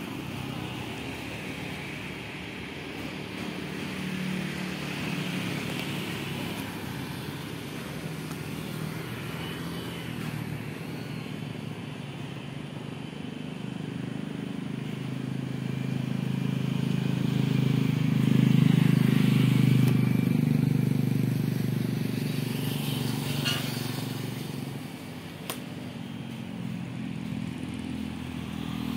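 Motorcycle and road traffic engines running past on a nearby road, a steady low rumble that swells to its loudest about two-thirds of the way through and then fades.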